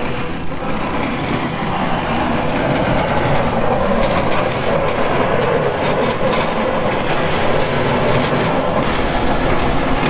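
Cat 257D compact track loader's diesel engine running under load as it pushes snow with its hydraulic blade: a steady mechanical noise that grows a little louder over the first couple of seconds.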